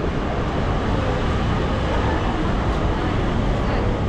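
Steady city street noise: road traffic running alongside the pavement, with faint voices of passers-by mixed in.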